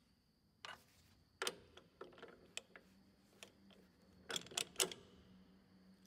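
Scattered light clicks and knocks at uneven intervals, the loudest three close together near the end, over a faint steady hum.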